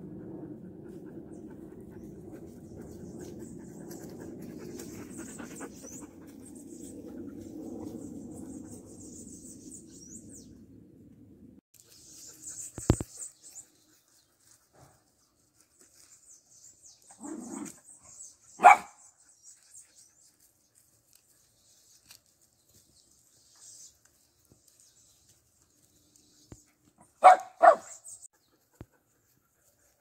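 A dog panting heavily for about the first ten seconds, then barking: a short bark just past the midpoint and two quick barks near the end.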